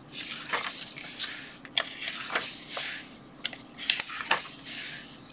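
Pages of an old paperback book being handled: a hand turns the page and smooths it flat, giving a series of paper rustles and swishes with a few sharp crinkles.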